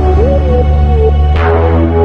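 Intro music: a steady electronic backing with sustained low notes and a gliding melody, with a fresh chord struck about a second and a half in.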